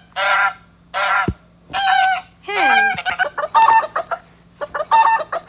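Geese honking: a run of loud honks, some with a falling pitch, coming faster and overlapping in the second half.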